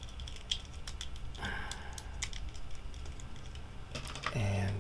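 Plastic parts of a Deluxe Astro Megazord toy clicking and rattling as it is handled and transformed, heard as a run of small irregular clicks. There is a short rustle about a second and a half in, and a brief low hum near the end.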